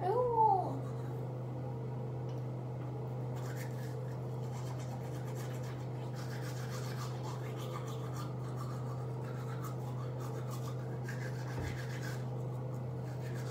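Manual toothbrush scrubbing teeth: soft, repeated bristle rubbing over a steady low hum. A brief hummed vocal sound rises and falls right at the start.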